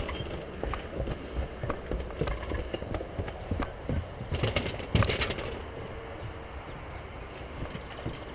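Footsteps and a pushed bicycle knocking and rattling on wooden stairs and boards, irregular thumps about two or three a second, with a louder knock about five seconds in. After that it goes softer and steadier as the bike rolls over the boards.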